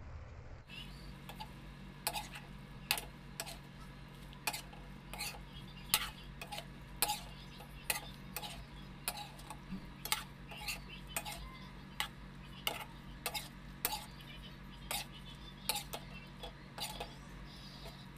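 Metal spatula clinking against a wok while stir-frying green beans and shrimp, with irregular knocks about once or twice a second over a steady low hum.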